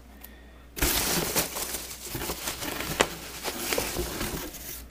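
Polystyrene packing peanuts rustling and squeaking as a hand digs through them in a cardboard box to pull out a shrink-wrapped box, starting about a second in, with a few sharp clicks among the rustle.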